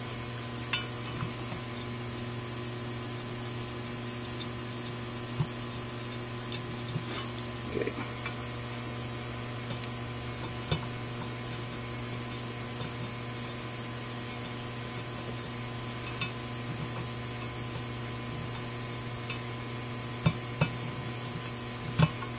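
Occasional light metallic clicks of a screwdriver turning a power valve into the cast-metal fuel bowl of a Rochester 2G (2-jet) carburetor, over a steady background hum. About eight sharp clicks are spread out, with two close together near the end.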